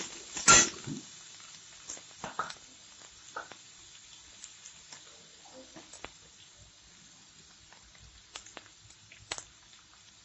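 Metal spatula knocking and scraping against a kadai while stirring onions and garlic paste frying in oil: one loud knock about half a second in, then scattered light clicks and scrapes over a faint sizzle.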